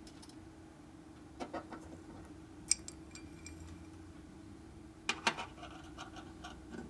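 Small steel parts from a Harley-Davidson four-speed transmission's shift fork assembly being handled and set down on a steel workbench: a few light metallic clicks, one sharp clink with a brief ring about two and a half seconds in, and a cluster of clinks and taps about five seconds in. A faint steady hum sits underneath.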